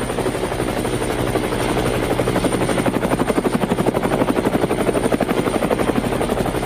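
Helicopter rotor blades chopping in a rapid, even beat, getting a little louder over the first few seconds as the helicopter comes in overhead.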